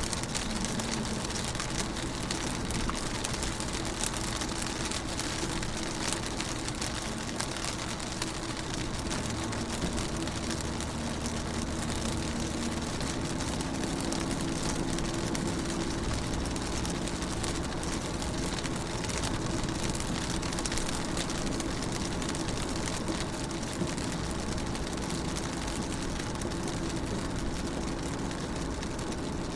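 Rain pattering on a car's windows and body: a steady hiss of many small drop ticks, with a faint low hum underneath.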